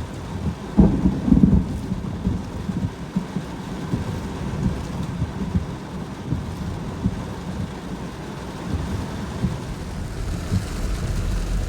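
Heavy rain and strong gusting wind of a severe thunderstorm, heard as an uneven low rush with irregular thumps. A louder low rumble comes about a second in.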